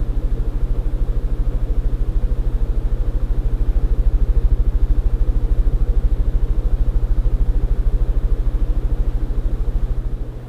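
Regency Solano ceiling fan running, with a fast, even low pulsing and a steady hum. It cuts off suddenly near the end.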